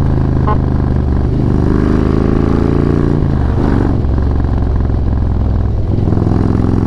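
Harley-Davidson Road Glide's V-twin engine running under way, its note climbing and then falling back twice, about three seconds in and again near the end, as the bike gets going again.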